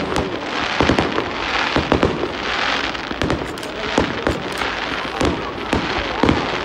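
Aerial fireworks display: an irregular run of sharp bangs from bursting shells, about two or three a second, over a continuous crackle.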